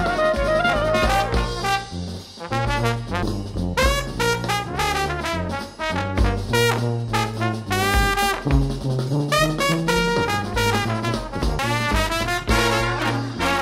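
Background music: a swing-style jazz tune led by brass horns over a walking bass and drums.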